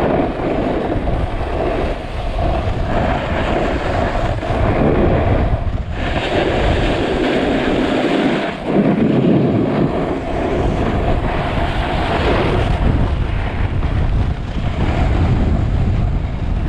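Strong gusting wind buffeting the microphone in a steady rumble, with the hiss and scrape of a snowboard sliding over snow rising and falling beneath it.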